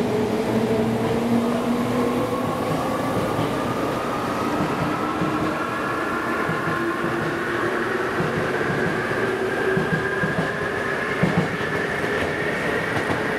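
JR Kyushu 787 series electric limited express pulling away from the station, its traction motors' whine rising steadily in pitch as it accelerates, over the rumble of the wheels on the rails.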